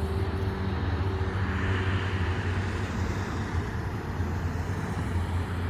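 A steady low engine hum, with a soft higher rushing sound that swells and fades again a couple of seconds in.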